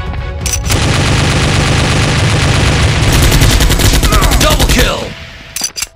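Automatic gunfire sound effect: a dense burst of rapid shots starting about a second in and running for about four seconds before it cuts off, with two short sharp reports near the end.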